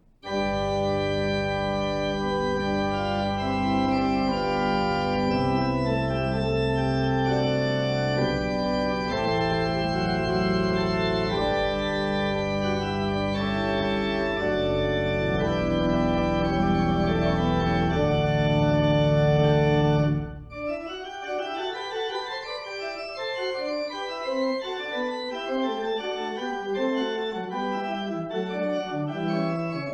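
Organ music: full sustained chords over a deep pedal bass. About two-thirds of the way through, the bass drops out and the playing goes on with lighter, quicker-moving notes.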